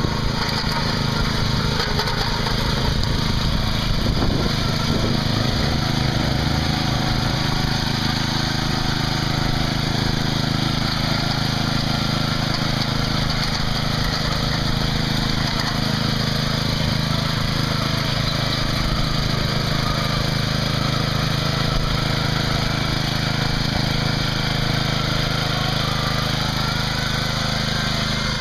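Riding lawn mower engine running steadily at an even pitch and level.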